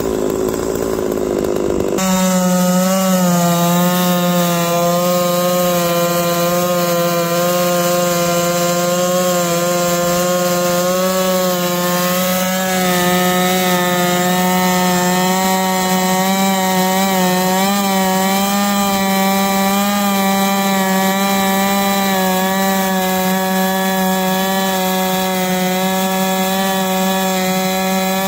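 Holzfforma G660 two-stroke chainsaw (a Stihl MS660 clone) running at full throttle on a chainsaw mill, ripping a lengthwise cut through eastern red cedar. A sharp change about two seconds in gives way to a steady, high engine note that wavers slightly as the chain cuts.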